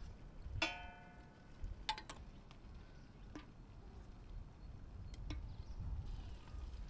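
Kitchen utensils clinking against dishware: a few sharp taps, the first, about half a second in, ringing briefly with a clear pitch.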